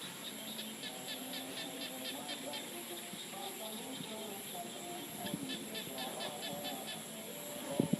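Chorus of frogs calling: overlapping low croaking calls, with two runs of rapid high pulsed calls, about five a second. A short low knock near the end is the loudest moment.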